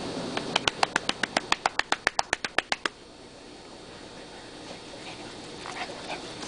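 A dog barking in a fast, even run of short yaps, about six or seven a second, for about two and a half seconds starting about half a second in.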